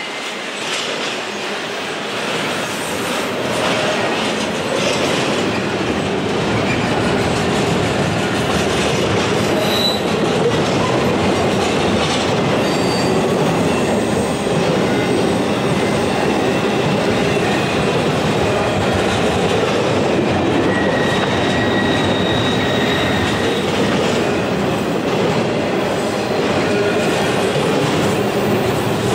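Double-stack intermodal freight train's well cars rolling past: a steady rumble of steel wheels on rail that builds over the first few seconds. Faint high wheel squeals come and go in the later part.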